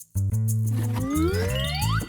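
Children's cartoon background music with a bass line, over which a sliding tone rises steadily in pitch through the second half.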